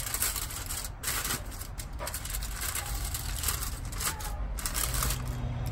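Aluminium foil crinkling and crackling in irregular bursts as hands fold and crimp a foil packet shut.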